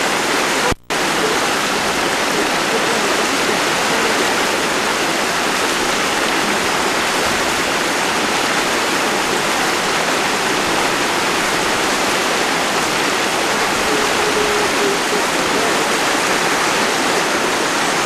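Steady rush of flowing water, an even hiss that does not let up. The sound cuts out for a split second about a second in.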